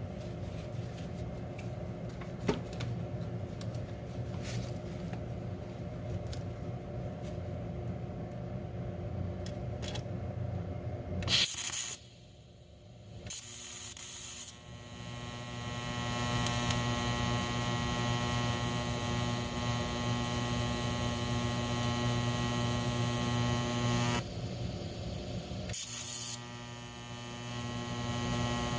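TIG welder arc buzzing while weld is built up on a broken bolt, struck in several runs. Each run opens with a short crackle of the high-frequency arc start, about 11 s and 13 s in and again near 26 s. The buzz holds steady for about ten seconds, stops, then resumes near the end, over a low hum heard for the first stretch.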